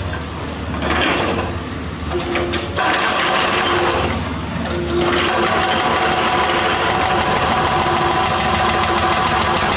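Hydraulic excavator working at building demolition: diesel engine running under load, with bursts of rougher noise in the first half. About halfway through it settles into a steady sound with a held whine.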